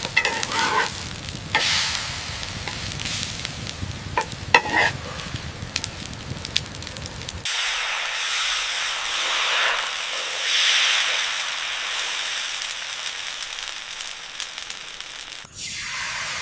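Food sizzling and crackling in hot oil on a pan, with a couple of short high squeaks at the start and about four seconds in. About halfway through it changes abruptly to a steadier, thinner hiss.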